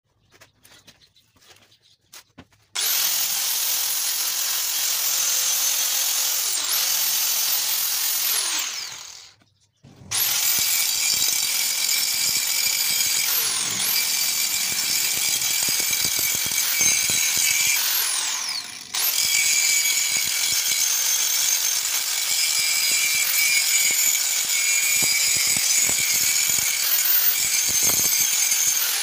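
Corded angle grinder with a flap disc grinding rust off an iron pipe. It starts about three seconds in, runs, spins down and stops near ten seconds, then starts again and runs on, its high whine dipping briefly now and then as it is pressed into the pipe.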